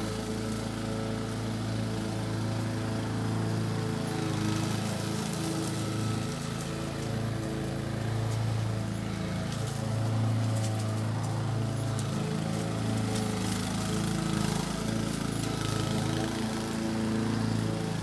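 Lawnmower engine running steadily at an even speed.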